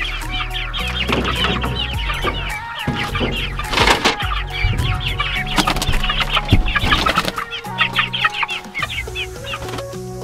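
Laying hens clucking and squawking excitedly as they are loaded into a plastic poultry crate, with a few sharp knocks from the crate. The squawking thins out near the end. Background music plays underneath.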